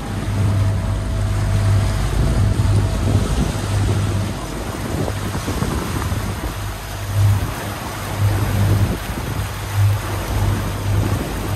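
Catamaran under way: water rushing past the hulls and wind buffeting the microphone in uneven gusts, over a low hum.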